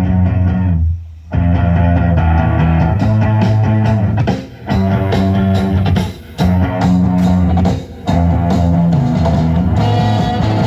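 Rock music with guitar, bass and drums playing from a cassette through a Pioneer SX-535 stereo receiver and floor speakers, with a few brief breaks between phrases. It plays cleanly without static, the receiver's pots freshly cleaned.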